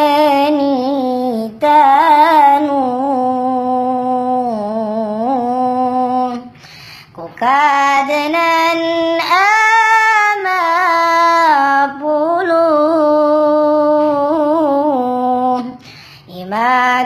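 A high voice singing a slow Islamic song for madrasah students in long, held, wavering notes, breaking off briefly twice.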